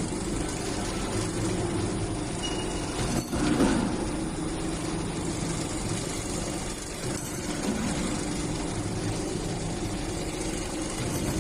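Automatic wire straightening and cutting machine running: a steady motor hum with the noise of wire being fed through the straightening rollers, and a louder knock about three and a half seconds in.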